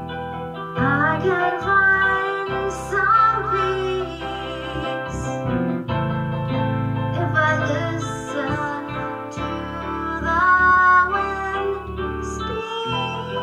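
A woman singing a song over keyboard accompaniment, her voice coming in about a second in.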